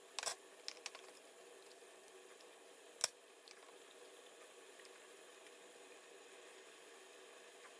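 Skin being pulled off a whole raw chicken by hand: a few short wet squelches and snaps, mostly in the first second, the loudest about three seconds in, over quiet room tone.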